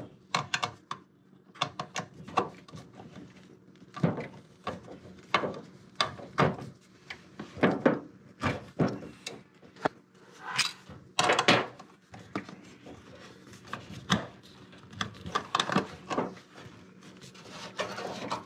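Irregular clicks, taps and rubbing from hands working a ground wire onto a dishwasher's ground screw against its sheet-metal brackets, with a screwdriver being handled near the end.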